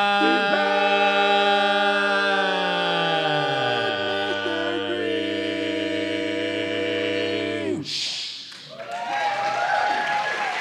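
Barbershop quartet singing a cappella, holding a final close-harmony chord while the bass slides down to a low note. The chord cuts off about eight seconds in, and applause rises right after.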